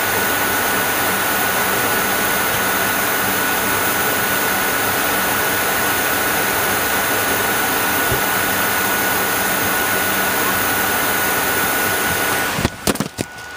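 Steady flight-deck noise of an MD-80 airliner in flight: rushing airflow and engine hum with a thin, steady high whine. Near the end the sound cuts off abruptly with a few clicks.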